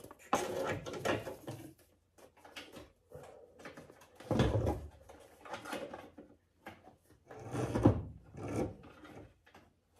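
Handling noise from headlight parts being worked into place: rubbing, scraping and knocks in three or so separate bursts.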